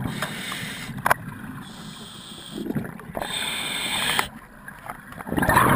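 Scuba regulator breathing heard through an underwater camera housing: noisy, bubbling surges that swell and fade every few seconds, loudest near the start and near the end. There is a sharp click about a second in.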